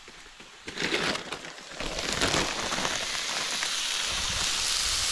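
Chicken and vegetables sizzling on a flattop griddle, a steady hiss that comes up louder about two seconds in. Before that, a few short rustles.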